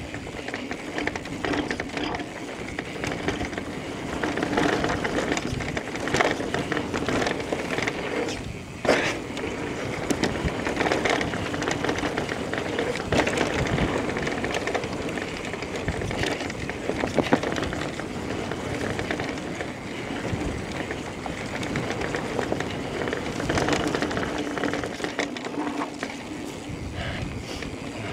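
Electric mountain bike rolling fast over a dirt singletrack: tyres on dirt with the bike rattling and clicking over the rough ground. A sharp knock stands out about nine seconds in, like a wheel hitting the ground hard.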